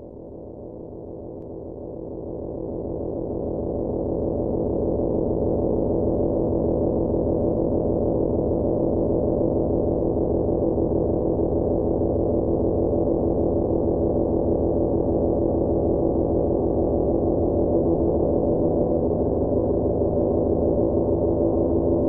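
Homemade analogue synthesizers playing a thick electronic drone of several steady pitches layered together, with a fast flicker running through it. It swells up over the first four seconds, then holds steady.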